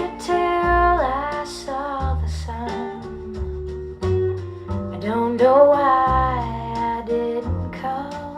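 A slow jazz-pop ballad played back through a loudspeaker system: guitar and bass under a gliding, voice-like melody line.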